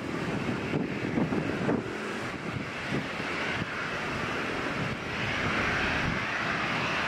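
Jet engines of a Boeing 737-900ER (CFM56 turbofans) running on the runway as the airliner turns, a steady rushing roar that grows louder about five seconds in. Wind rumbles on the microphone at the start.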